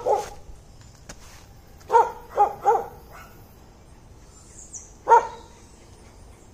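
Dog barking in short bursts: two barks at the start, three quick barks about two seconds in, and one more about five seconds in.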